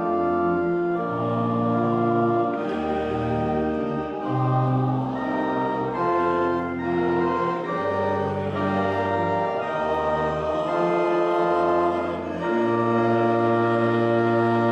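Church organ playing the postlude at the close of a service: held chords over deep pedal notes that change every second or two.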